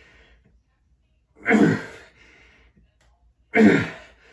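A man's forceful voiced breaths out, one on each pull of a bent-over row: two sharp exhalations about two seconds apart, each dropping in pitch, with faint breathing between.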